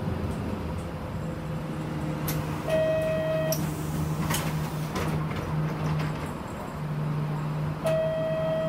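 City bus engine running steadily while the bus stands at a stop. Two short electronic beeps sound about five seconds apart, with a few clicks and knocks in between.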